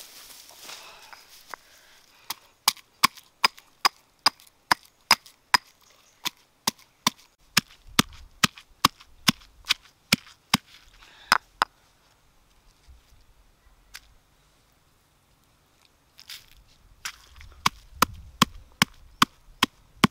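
A pestle pounding chilies and garlic in a stone mortar: a steady run of sharp knocks, about two to three a second, a pause of a few seconds in the middle, then the pounding resumes near the end.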